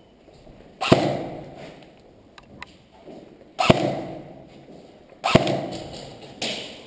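Airsoft guns firing single shots: three sharp cracks about a second, three and a half and five seconds in, and a fainter one near the end, each echoing on through the bare concrete rooms.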